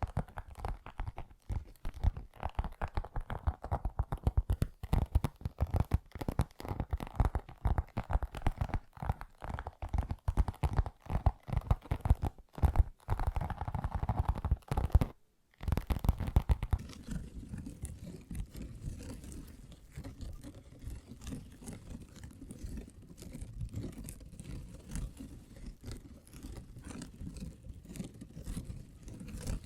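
Fingertips tapping fast and unevenly on a cosmetic bag, then, after a short break about halfway, fingers scratching it in a softer, continuous rub.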